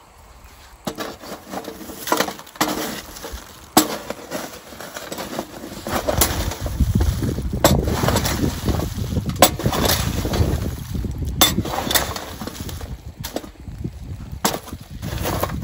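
A spade digging into a bed of charcoal in a metal fire pit: lumps of charcoal crunching and clinking, with sharp knocks of the blade against the coals and the pit. The digging gets heavier and more continuous about halfway through.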